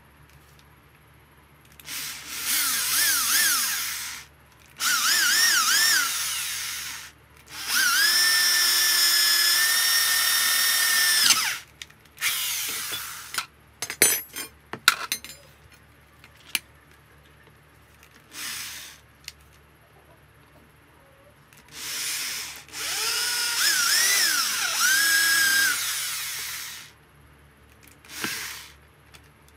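Electric hand drill boring through a scrap-iron bar, run in about six bursts of a few seconds each. The whine wavers in pitch in some bursts as the trigger and load change and holds steady in the longest one, with a few sharp clicks and knocks in a pause near the middle.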